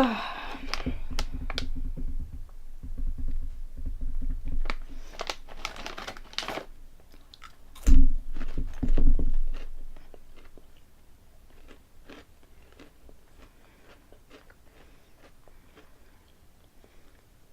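Close-miked chewing and crunching of honey-flavoured Korean potato snacks. A louder, lower sound comes about eight seconds in, and after about ten seconds the crunching goes on as faint crackling clicks.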